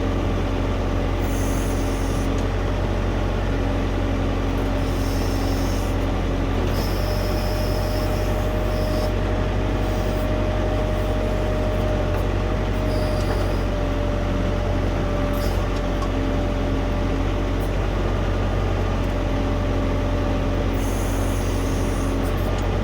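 Diesel tractor engine running steadily, with a thin steady whine over the low drone and higher sounds that come and go.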